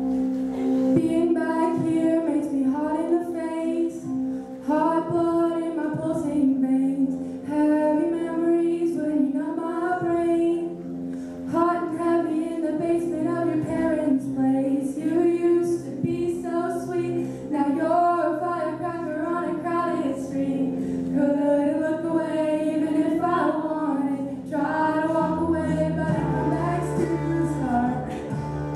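Girls' voices singing a song together into microphones, over instrumental accompaniment of held chords and a bass line that changes near the end.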